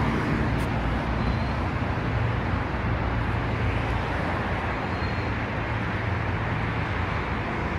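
Steady highway traffic noise, an even rush of tyres and engines with no single vehicle standing out.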